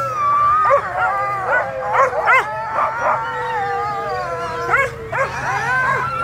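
Many harnessed sled dogs giving long drawn howls over short sharp yips and barks, all at once and without pause. This is the excited din of a team waiting at the start line, eager to run.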